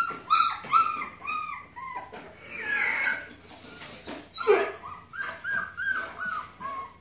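Four-week-old puppy whining, a run of short high-pitched cries about two or three a second, with a lower, louder cry about four and a half seconds in.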